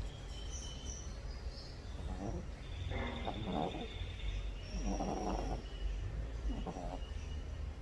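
A sleeping dog snoring, with uneven snores about every one to two seconds.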